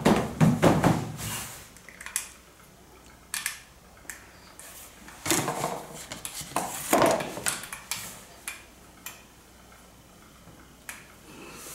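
Metal pastry wheel cutter and utensils clinking, knocking and scraping on a stainless steel bakery table while dough is cut: louder in the first second or so, then a few scattered clinks.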